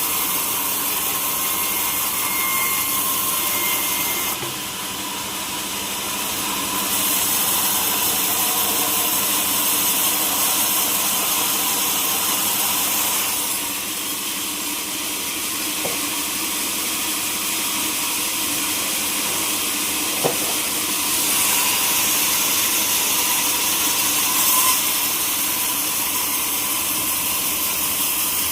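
Sawmill saw running steadily with a loud hiss, the high part of the hiss growing and easing several times as it works the teak.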